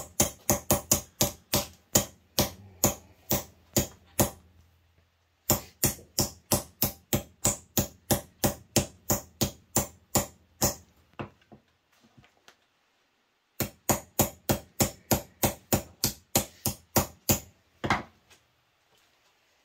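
Ball-peen hammer striking a thin steel rose petal blank on a wooden stump, stretching the petal into a bowl shape. Quick runs of sharp metallic taps, about four a second, come in three bursts with short pauses between, and one last strike near the end.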